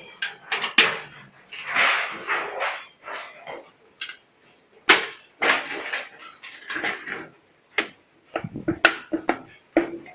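Galvanized sheet metal being bent and handled by gloved hands, giving irregular clanks, rattles and crinkles, with a few sharp knocks.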